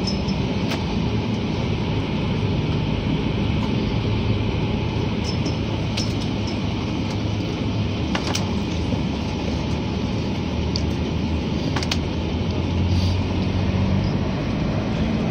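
Steady engine and road noise inside a moving vehicle, with a low hum and a few sharp clicks or rattles.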